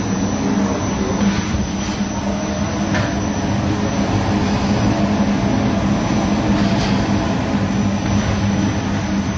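Industrial machinery running steadily, a constant low hum with a steady tone, with a few faint clicks or knocks scattered through it.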